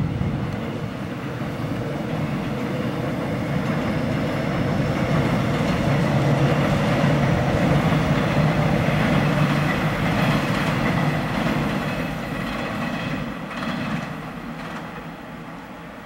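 Korail Line 1 electric commuter train passing on a far track. The rumble of its wheels swells to a peak about halfway through and then fades, with a thin high whine in the middle and a few clacks over rail joints near the end.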